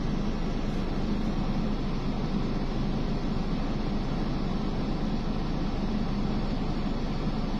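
Steady hum of a stationary car's engine and ventilation, heard from inside the cabin.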